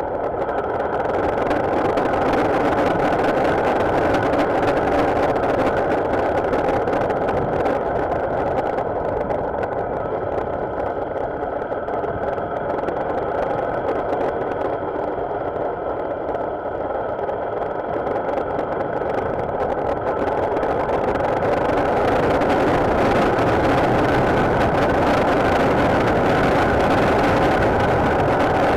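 Motorcycle running along the road: a steady mix of engine and rushing noise that grows louder about twenty seconds in.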